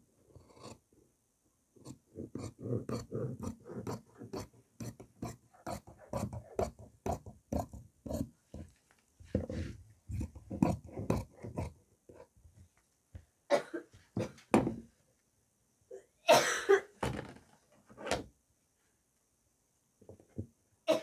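Large tailor's shears cutting through coat fabric along a chalked sleeve line: a quick, even run of snips, about three a second. The cutting stops about two-thirds of the way in, and a few louder rustles of the fabric being handled follow.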